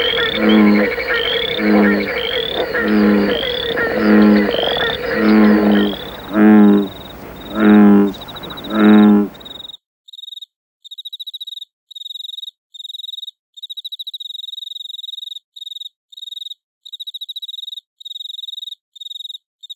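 Frogs croaking in chorus: a deep croak about every half-second over a dense din, with higher rising chirps between. Three louder croaks come just before the chorus cuts off abruptly, about ten seconds in. After that, only a cricket's high, clean trilling chirps remain, in runs of uneven length.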